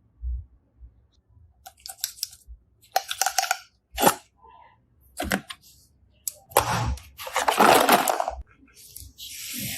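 Slime being squeezed and pressed by hand, in a series of short, irregularly spaced crunchy-sounding bursts.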